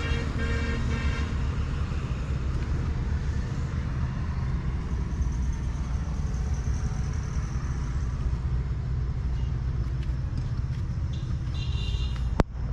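A steady low rumble of motor traffic, with a quick run of short high beeps about a second in and a single sharp click near the end.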